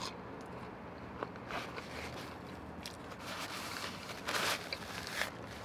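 Close-miked eating sounds: small wet clicks of chewing and sucking food off the fingers, then a paper napkin rustling as the mouth is wiped, in a couple of bursts from about four seconds in.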